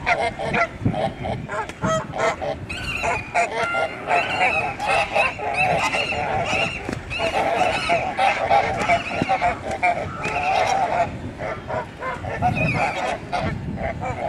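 A flock of geese honking, many calls overlapping without pause, busiest from about three to eleven seconds in.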